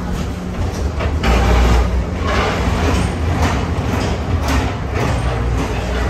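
Tomorrowland Transit Authority PeopleMover ride car running along its track: a steady low rumble with a rushing noise over it, growing louder about a second in.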